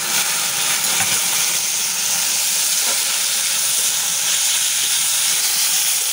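Chopped vegetables sizzling in hot oil in a metal wok, a steady hiss, while a metal spatula stirs them, with a couple of light scrapes about one and three seconds in.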